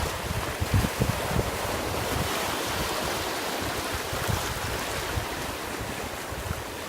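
Ocean surf washing onto the shore in a steady hiss, with wind buffeting the microphone in low rumbles, mostly in the first second or so.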